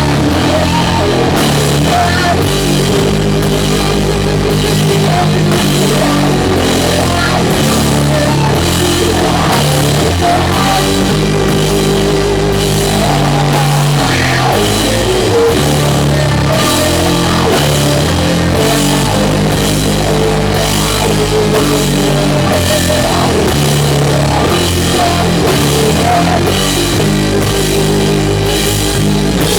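Doom metal band playing live: heavy distorted guitar and bass chords held for a second or two at a time over a steady drum beat.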